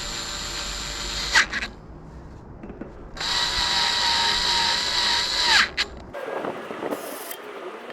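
Electric drill-driver driving the disc brake rotor bolts into a bicycle rear hub. The motor runs twice, the first run stopping about a second and a half in and the second running from about three seconds to five and a half seconds, each ending in a sharp click.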